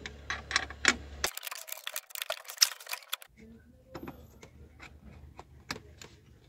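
A spanner turning and tightening nuts by hand in a cramped space, with irregular metallic clicks and taps. The clicks come thickest in a quick run from about a second in to about three seconds in.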